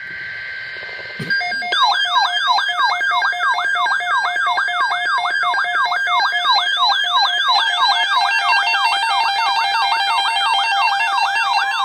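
NOAA Weather Radio emergency alert tones. A short two-pitch warble of the digital alert data burst comes first, then about a second in a loud electronic siren-like alarm starts, yelping up and down about three times a second over steady tones. Its pattern shifts a little past halfway.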